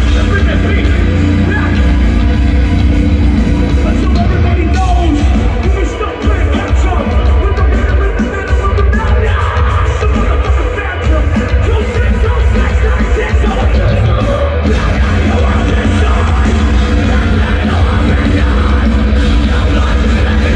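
Metalcore band playing live at full volume: heavy distorted guitars, bass and drums with vocals, heard from within the crowd. The music briefly drops about six seconds in, then comes back in full.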